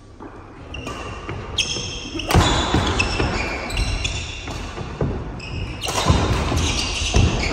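Badminton doubles rally: rackets striking the shuttlecock, with players' shoes squeaking on the wooden court floor and their footfalls, the sounds coming thick and loud from about two seconds in.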